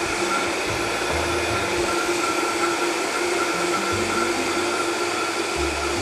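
Vitamix blender running steadily at speed, blending a liquid fruit-and-sage smoothie: an even motor whine over the churning of the contents.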